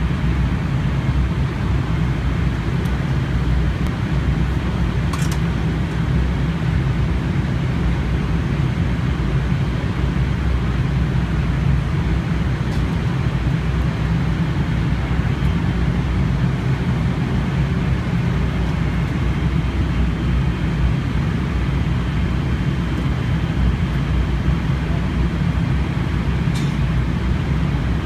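Steady drone of an airliner cabin in flight: engine and airflow noise with a strong low hum, unchanging throughout.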